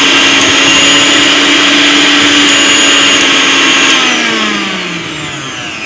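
Jaipan 850-watt blender motor base running at high speed with no jar fitted, a loud steady whine. About four seconds in it is switched off and winds down, its pitch falling.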